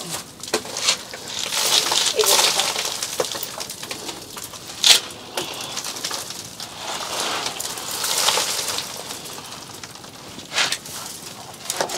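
Rustling and scraping of a person clambering down into a narrow stone-lined pit: clothes, hands and feet brushing rough stone and loose soil, in uneven bursts. A sharp knock about five seconds in.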